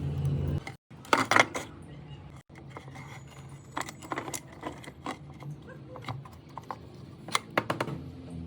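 A steady low hum cuts off under a second in; then scattered metallic clicks and clinks of small metal parts and tools being handled, loudest just after one second and near seven and a half seconds.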